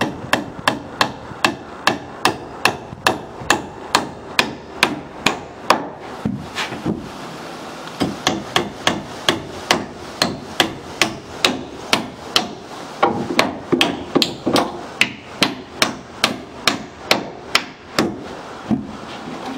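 Claw hammer driving nails into 2x4 roof-truss lumber, steady blows about three a second. The hammering stops for a second or two about six seconds in, then goes on.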